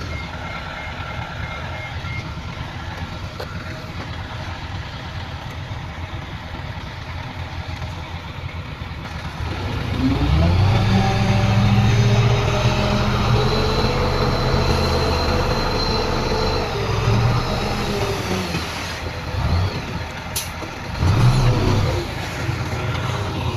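Heavy diesel earthmoving machine engine running, revving up and working under load about ten seconds in, easing off, then surging briefly again near the end.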